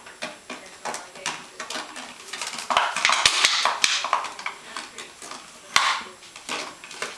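Welsh Springer Spaniel puppy chewing and tugging at paper in her bed: crinkling and rustling with scattered small clicks. The crinkling is loudest in a burst from just under three seconds in to about four seconds, and there is one more sharp crackle near the end.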